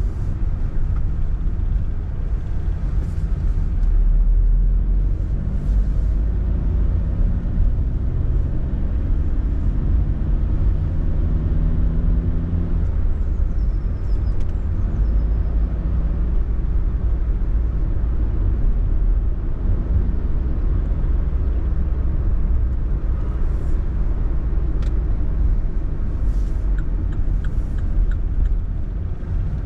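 Car driving: a steady low rumble of engine, tyres and wind, with the engine note climbing between about a quarter and nearly halfway through as the car accelerates.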